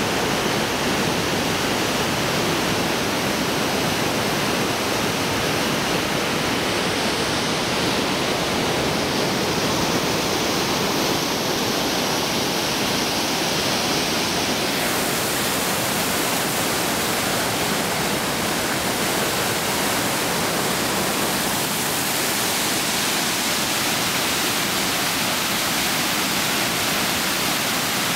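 Steady rushing of whitewater cascading and falling through a narrow rock canyon, an unbroken wash of water noise. The hiss grows a little brighter about halfway through.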